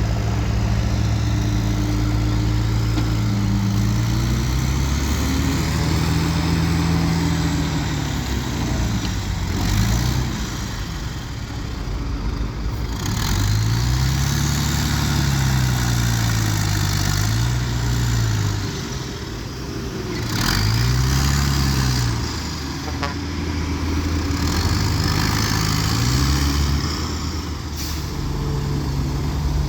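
Komatsu D21P bulldozer's diesel engine working, its pitch rising and falling again and again as it takes load and eases off while pushing stone fill.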